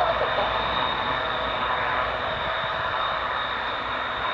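Rolls-Royce Dart turboprop engines of a Hawker Siddeley Andover C1 running as the aircraft taxis: a steady high turbine whine over a continuous rushing drone.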